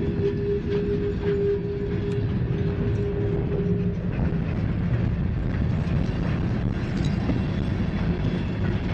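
Freight train of covered hopper cars rolling past close by, a steady low rumble of wheels on rail. A steady tone sits above the rumble for the first four seconds or so, then stops.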